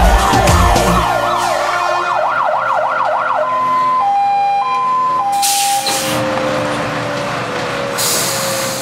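Fire engine siren sounding a fast rising-and-falling yelp. About three and a half seconds in it switches to a high-low two-tone for a couple of seconds, then settles into a single tone that slowly falls in pitch. Two short bursts of hiss come through, one near the middle and one near the end.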